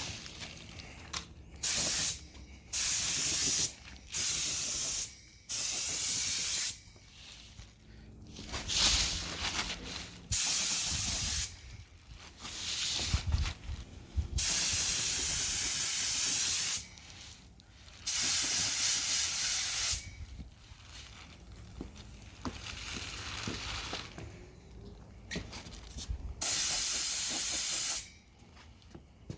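Paint being sprayed onto a car fender in repeated passes: a hiss that starts and stops sharply, each burst lasting about one to two seconds, with short pauses between them.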